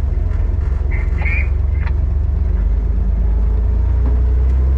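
Toyota FJ40 Land Cruiser engine running, a steady low drone that gets a little louder about four seconds in.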